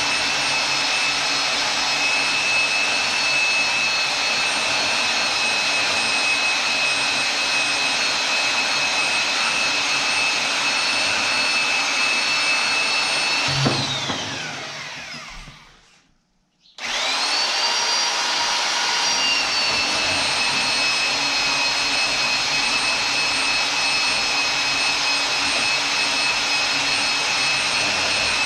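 Electric cutting tool's motor running with a steady high whine while cutting 5/8-inch rebar. About 14 s in it is switched off and spins down, winding down in pitch to silence. It starts again about two and a half seconds later, quickly back up to speed.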